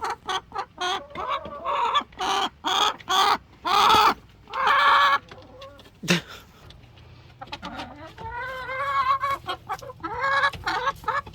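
Domestic chickens clucking, many short calls one after another, with a few longer, louder calls about four and five seconds in. A single knock about six seconds in.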